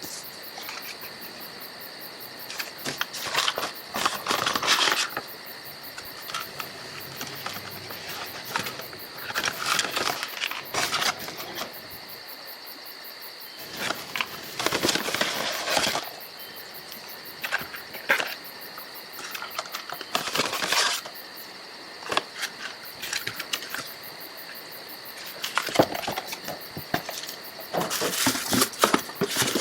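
Intermittent rustling, scraping and light knocks of packaging and gear being handled as a boxed portable power station is unpacked, over a faint steady high-pitched hum.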